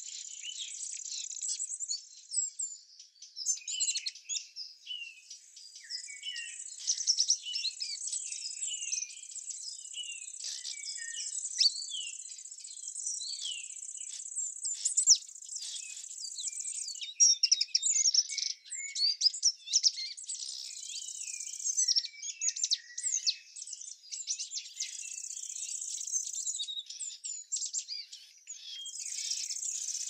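Many small birds chirping and twittering in quick, overlapping calls, over a steady high insect trill that drops out for stretches and returns.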